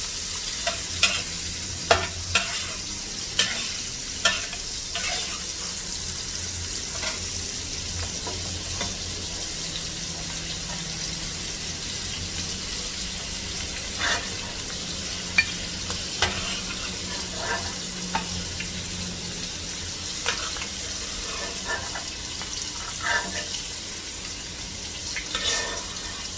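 Prawns sizzling in hot oil in a wok with a steady hiss, with frequent sharp spatters and the knock of a spatula against the pan as they are stir-fried.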